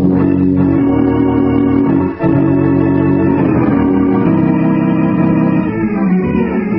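Organ music bridge between scenes of a radio drama: sustained organ chords, broken by a short gap about two seconds in, with a change of chord near the end.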